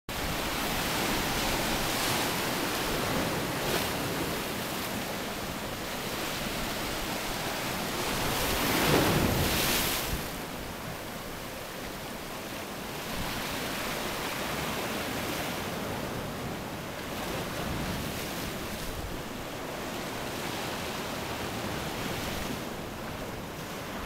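Sea waves breaking against a rocky shore: a continuous wash of surf that swells and ebbs, with the loudest crash about nine seconds in.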